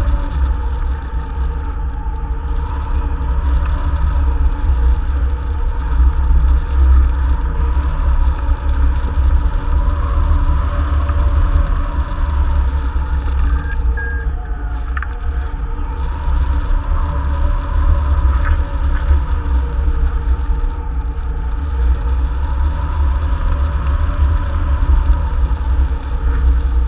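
Wind rushing and buffeting over the microphone of a camera mounted on a hang glider's wing in flight: a loud, steady, heavy low rumble with a faint steady whistle above it.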